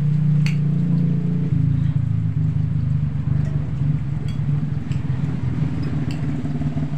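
A motor engine running steadily nearby, a low hum that deepens about a second and a half in, with a few faint clicks.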